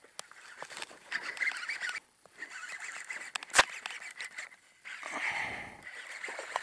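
Baitcasting reel being cranked in short bursts of whirring with scattered clicks, and one sharp click about three and a half seconds in.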